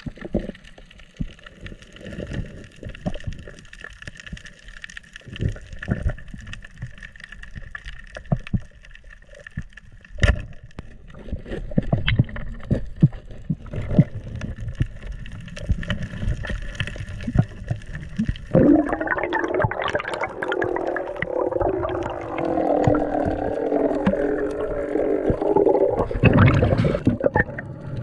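Underwater sound picked up by a diver's camera: muffled thumps and scattered clicks of water movement, then from about two-thirds of the way through a loud, continuous gurgling of bubbles that stops shortly before the end.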